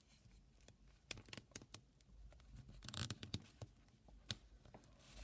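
Faint irregular clicks and rustling of a plastic Mechagodzilla toy figure being handled as its articulated arms are moved, with a brief scratchy rustle about three seconds in.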